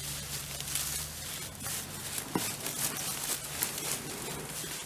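Footsteps and gear rustling through dry leaf litter and brush: irregular crunching and crackling. A low steady hum underneath stops about a second in.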